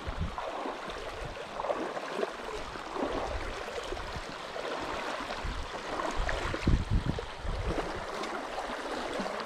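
Shallow river water running over a stony riffle, a steady rushing hiss, with a few low rumbles about two-thirds of the way through.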